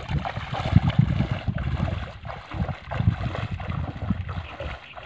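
Footsteps splashing and sloshing through shallow water in a flooded, grassy field, under an irregular low rumble of wind buffeting the microphone.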